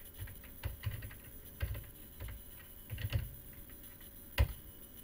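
Typing on a computer keyboard: irregular single key presses, with one sharp, much louder keystroke about four seconds in.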